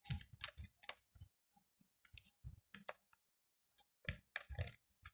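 Sheet of origami paper crackling and rustling as it is pulled and pressed into folds: short scattered crackles in several clusters.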